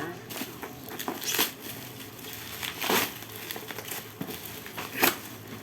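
Plastic packaging crinkling and rustling as it is handled and pulled off, with a few sharper crackles, the loudest about three seconds in and near the end.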